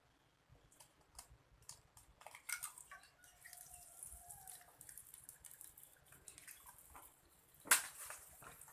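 An egg frying in hot margarine in a pan, with faint sizzling and scattered crackles and pops. A single sharp click near the end.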